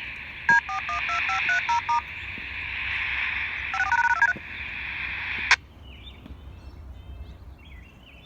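DTMF touch-tones over a scanner radio: the county EMA encoder's siren-activation tones for a tornado drill. Two quick strings of two-tone beeps sound amid radio hiss, and the transmission cuts off with a click about five and a half seconds in.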